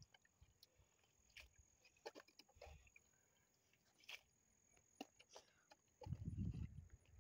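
Faint wet squelches and clicks of hands and a small container scooping mud and water out of a shallow hand-dug coyote well, with a low muffled rumble near the end.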